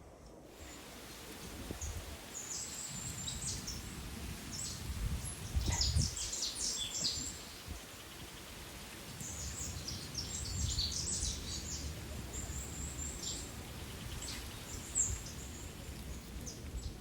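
Small birds chirping in quick, high clusters, first from about two to seven seconds in and again from about nine to fifteen seconds in, over a steady low rumble.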